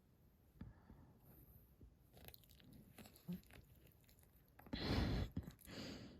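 Short-haired chihuahua making small wet clicking and smacking mouth noises, then two loud rough breaths about a second apart near the end.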